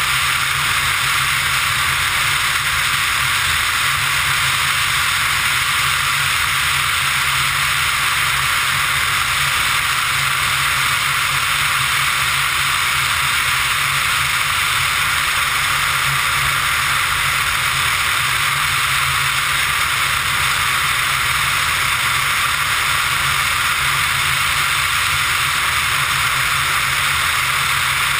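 Steady rush of wind and engine drone from a Pipistrel Virus ultralight in level cruise, heard through a camera mounted outside on the airframe. The sound holds constant, a loud airy hiss over a low hum.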